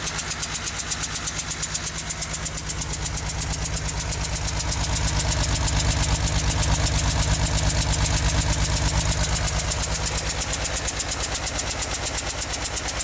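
1975 Porsche 911's air-cooled flat-six engine idling with a steady, rhythmic tick, about five a second. The tick showed up after an engine re-seal, and the owner does not know its cause. The engine gets a little louder about five seconds in.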